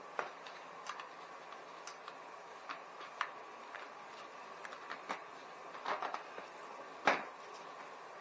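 Irregular light clicks and knocks from hand work on a bicycle wheel and tire, the loudest about seven seconds in, over a faint steady hum.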